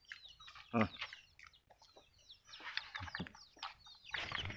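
Chickens clucking and chirping, many short falling calls that grow busier in the second half.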